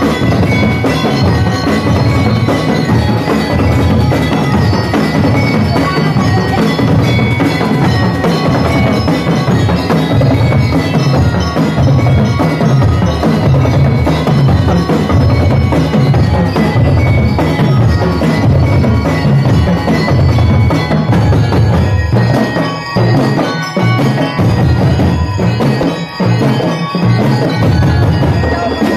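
Drum and lyre corps playing: marching snare and bass drums beat a steady, driving rhythm under the bright, ringing melody of bell lyres and mallet percussion. Near the end the low drums drop back for a few seconds before coming in again.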